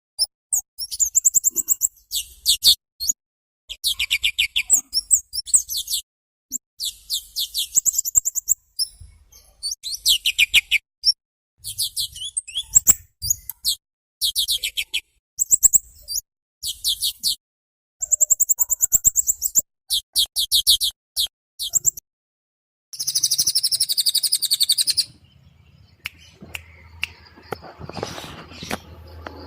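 A songbird singing short, high-pitched phrases of rapid trilled notes, each about a second long, repeated with brief gaps. About 23 seconds in comes a harsher two-second burst, and then the singing stops.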